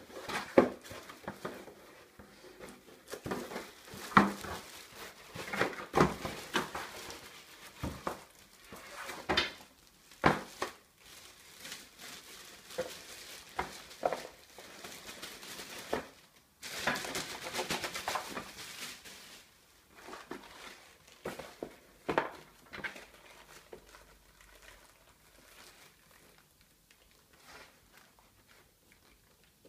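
Unboxing handling noise: a cardboard mailer being torn open and a laptop sleeve pulled out of a crinkling plastic bag, with irregular rustling, crackling and sharp clicks. A denser two-second burst of rustling comes about seventeen seconds in, and the handling grows sparser and quieter toward the end.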